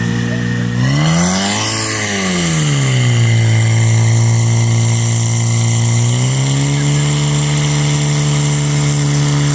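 Portable fire pump engine running loud and steady: it revs up sharply about a second in and drops back, then holds a steady speed while pumping water out through the hoses, picking up slightly about six seconds in.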